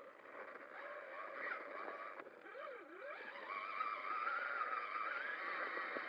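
Traxxas Summit RC truck's electric motor whining over a steady hiss, its pitch sliding up and down as the throttle varies.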